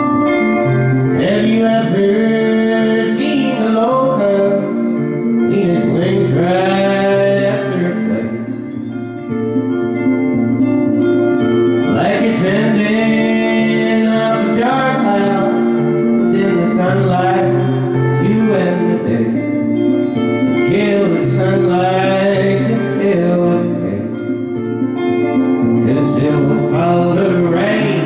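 A man singing live over his own hollow-body electric guitar; the vocal comes in phrases of a few seconds, with the guitar chords carrying on between them.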